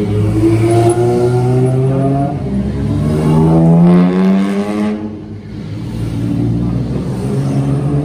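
Vintage car engine accelerating, its revs climbing in a rising whine-like pitch that is loudest about four seconds in. It drops away sharply about five seconds in, then a lower, steadier engine sound carries on.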